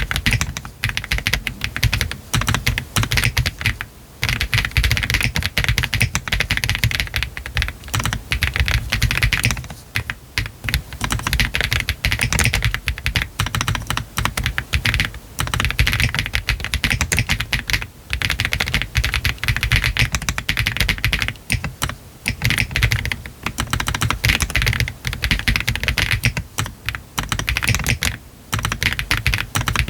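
Typing on a Meletrix ZOOM TKL mechanical keyboard with Y3 switches and PBT keycaps, its case foam removed: fast continuous runs of keystrokes with brief pauses every few seconds.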